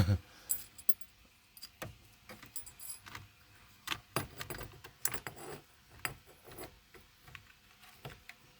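Irregular small clicks, clinks and rattles of metal parts and wiring being handled while a steering-wheel hub is fitted onto the steering column.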